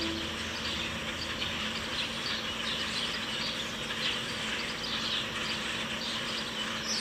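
A large flock of birds calling all at once: a dense, continuous chatter of many overlapping short chirps.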